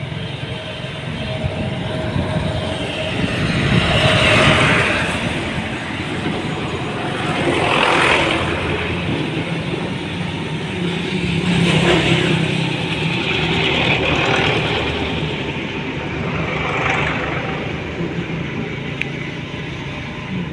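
Motor vehicle engines running steadily with road noise, swelling louder four times as vehicles pass close.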